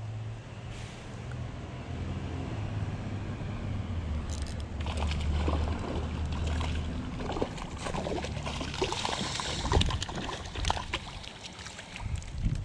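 A hooked rainbow trout splashing and thrashing at the surface of a shallow stream as it is reeled in on a spinning reel. The splashing starts about halfway through and is loudest near the end.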